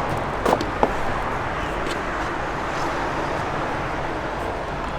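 Steady outdoor background noise, a low even rumble, with a few light clicks and taps in the first two seconds.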